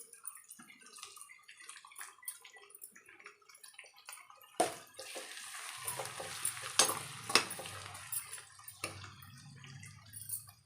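Onions frying in hot oil in a pan, crackling faintly; about four and a half seconds in there is a sharp knock and a louder sizzle sets in, with a couple of metal clinks of the spatula, as chopped tomatoes go into the hot oil. The sizzle eases off near the end.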